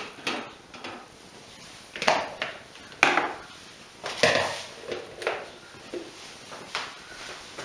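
Kitchen clatter: about five separate knocks and clunks, a second or so apart, as the Thermomix simmering basket is lifted out of the mixing bowl with the spatula and the basket, spatula and a bowl are set down.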